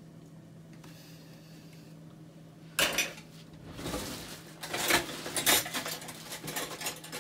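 A metal utensil knocking and scraping against a pot and plate while mashed potato is scooped and served. After a quiet start there is a sharp clatter about three seconds in, followed by a run of scrapes and clinks.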